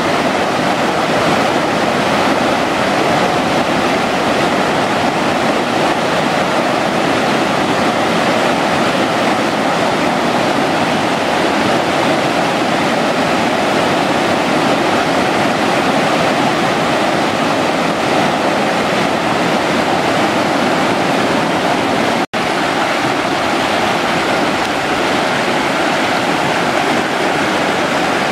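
Steady rush of a waterfall stream, fast water breaking into white water as it runs over rock. The sound cuts out for a split second about three-quarters of the way through.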